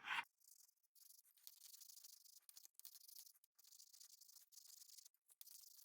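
Near silence: faint room hiss with scattered tiny irregular ticks, just after a brief scratching rub stops at the very start.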